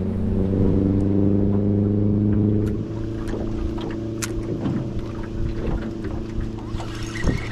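Small outboard motor running steadily, then dropping to a quieter running about three seconds in. A few sharp clicks sound over it.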